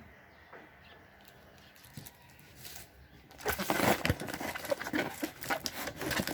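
Plastic packaging crinkling and rustling as it is handled, starting faintly and turning into a loud, dense crackle about three and a half seconds in.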